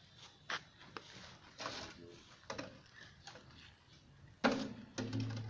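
Handling noise from snake tongs and a plastic bottle while a snake is being coaxed in: a few sharp clicks, then short scraping rustles, the loudest about four and a half seconds in.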